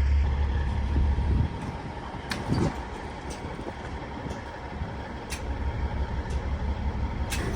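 Semi truck running nearby with a low rumble that fades about a second and a half in and builds again near the end. A few sharp knocks come through it.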